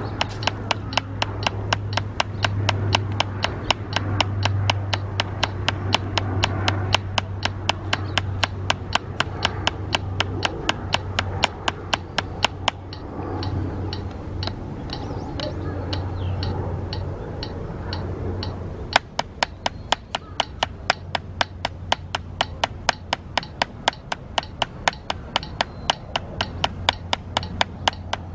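Wooden drumsticks striking a drum practice pad in an even stroke pattern, about three sharp taps a second, over a steady low hum. The taps get louder about two-thirds of the way in.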